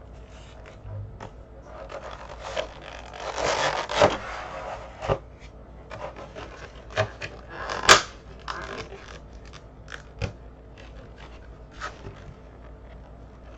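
Cardboard trading-card collection box being opened and handled by hand: irregular scraping and rustling of card and plastic, with scattered light clicks. One sharp snap about eight seconds in is the loudest sound.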